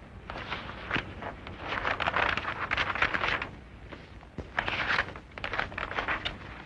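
Loose sheets of paper rustling and shuffling as they are leafed through by hand, in irregular bursts with a few light knocks.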